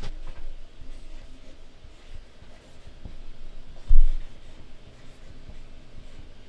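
Faint scratching of a bullet-nib marker tip rubbing across a surface, with a single low thump about four seconds in.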